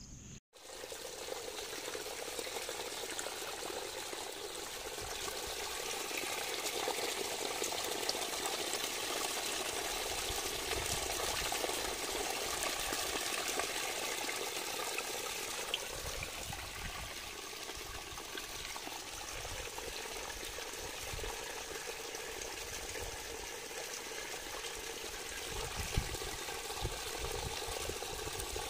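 Water gushing steadily out of a borewell pipe with no pump running, the bore overflowing on its own because the groundwater has risen.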